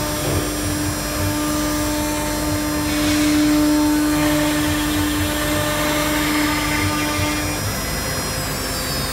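CNC router spindle cutting laminated particle board: a steady whine over the rough noise of the bit chewing through the board. Near the end a high tone falls in pitch.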